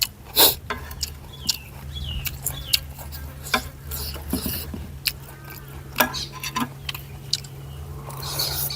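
A person eating noodle soup: chewing, with many short sharp clicks of utensils on a bowl and a few brief slurps or squeaks, over a steady low hum.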